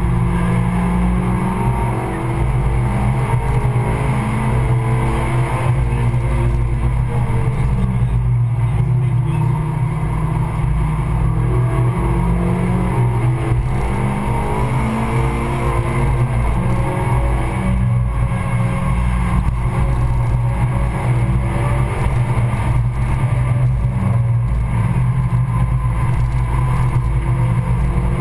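Stage 2 tuned Suzuki Swift Sport's 1.6-litre four-cylinder engine, heard from inside the cabin, driven hard on track: the revs climb and drop again and again through gear changes and corners, over steady road and wind noise.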